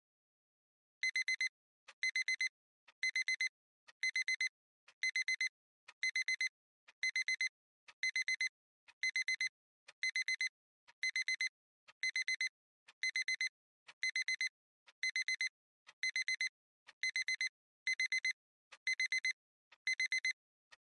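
Smartphone alarm beeping: a quick cluster of high electronic beeps repeating about once a second, starting about a second in.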